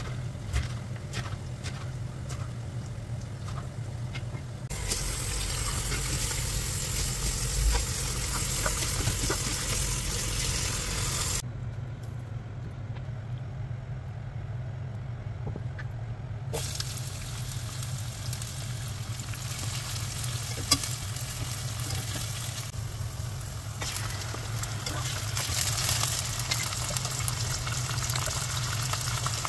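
A knife chopping fresh fenugreek leaves on a wooden board, a run of quick sharp taps. From about five seconds in, food sizzling and frying in hot oil in a pan. The sizzle drops away for a few seconds in the middle, then returns, with mutton and onions frying, strongest near the end. A steady low hum runs underneath.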